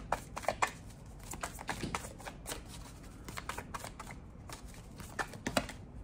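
A deck of tarot cards being shuffled by hand: an irregular run of soft card slaps and flicks, the sharpest ones near the start and again near the end.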